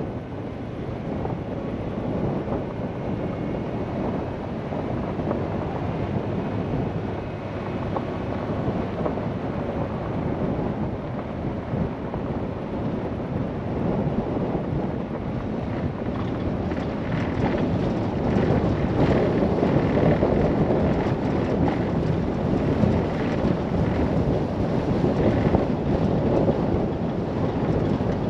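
Wind buffeting a vehicle-mounted camera's microphone over the road noise of tyres rolling on a gravel road. From about halfway through it gets a little louder, with a crackle of gravel and small knocks mixed in.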